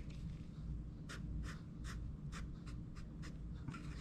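Handwriting on a small craft sign: short separate pen strokes, about two or three a second.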